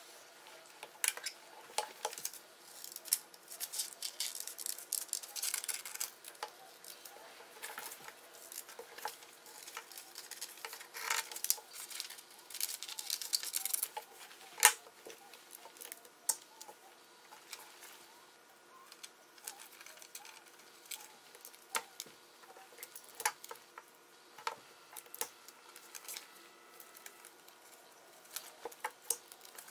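Scissors snipping paper, and paper sheets rustling and being handled on a wooden desktop: many sharp clicks and taps, with longer rustling stretches about four to six seconds in and again around eleven to fourteen seconds.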